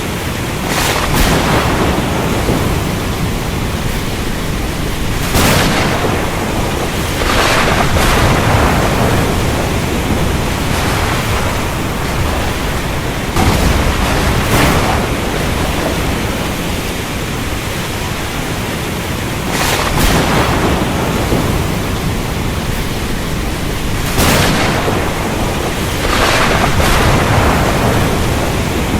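Steady heavy rain with sharp thunder cracks breaking in every few seconds, seven or eight times, each swelling and fading back into the rain.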